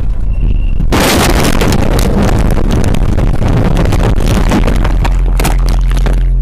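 Truck crash at road speed: a sudden violent crash about a second in, then several seconds of banging, crunching and scraping as the cab tumbles over, settling into a steady low hum near the end.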